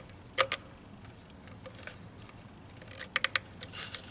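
Handwork on car interior trim: a few sharp clicks and light rattles of plastic trim clips and hand tools. There are two clicks about half a second in, then a quick run of about four clicks around three seconds in.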